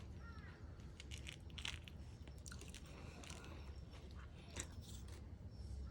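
Crunchy food being bitten and chewed close to the microphone, a scatter of sharp crisp crunches over a steady low hum.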